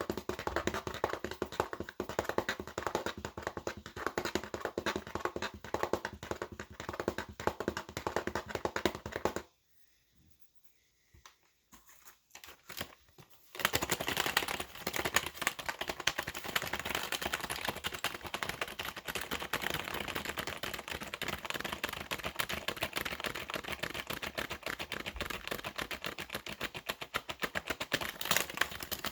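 Fast, hard typing on a computer keyboard: a dense, rapid stream of key clicks. The typing stops for about four seconds about a third of the way in, then starts again.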